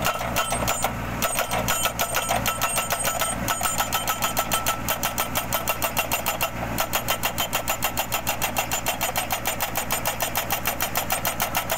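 Tractor-mounted hydraulic hammer pounding a steel crash-barrier post into the ground in rapid, evenly spaced blows, over the tractor's running engine.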